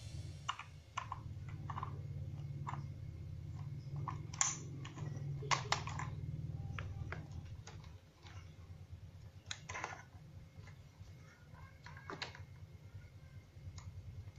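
Scattered clicks and knocks of hard plastic being handled: the battery cover of a toy helicopter's AA-battery compartment being fitted and snapped shut, and the toy turned over in the hands. A low steady hum runs under the first half or so.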